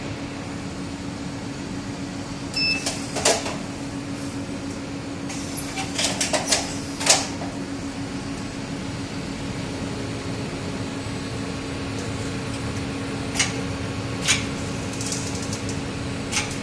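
Shop-plate making machine running with a steady hum, with scattered sharp clicks and knocks from its mechanism and a brief beep about three seconds in.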